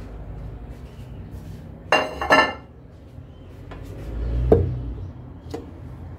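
A ceramic plate clinking twice with a short ring about two seconds in, then a dull thump a couple of seconds later as a raw whole chicken is set down in a stainless steel pressure cooker pot.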